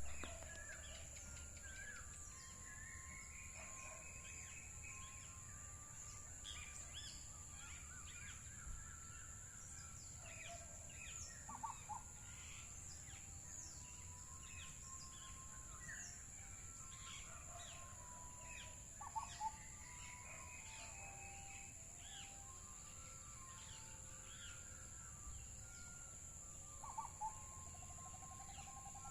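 Several birds calling faintly: many short chirps and whistles, a long rising whistled call twice, and a few sharper double calls, over a steady high hiss.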